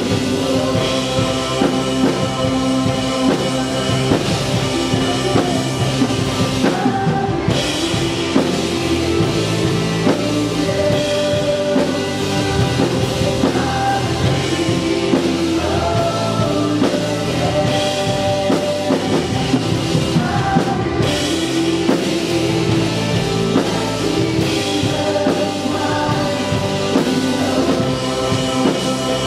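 A live worship band playing a song, with drum kit, electric guitars, bass and keyboard under sung vocals.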